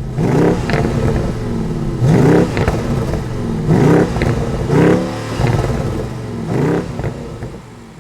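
BMW M550i's 4.4-litre twin-turbo V8 revved through an AC Schnitzer exhaust: about five quick throttle blips, each rising and falling in pitch, with sharp cracks after several of them. It settles toward idle near the end.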